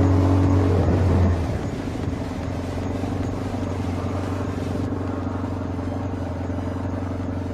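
Yamaha XJ600S motorcycle's air-cooled inline-four engine running steadily.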